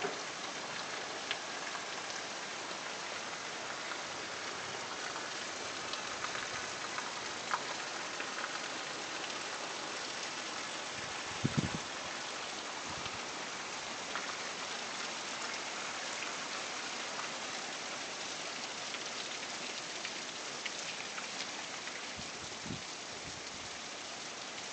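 Steady rain falling, with scattered drop ticks, a brief low thump about halfway through and a fainter one near the end.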